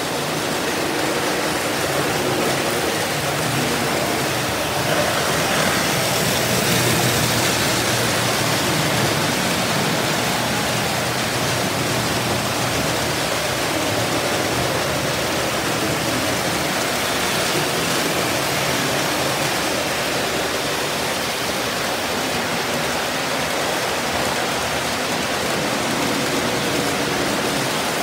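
Several early-1950s Lionel O-gauge trains running at once on three-rail tubular track: a steady, even din of metal wheels on the rails and electric motors.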